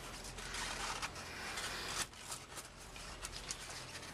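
Tire chains being handled and unhooked from a tire: rustling, with several short clinks in the second half.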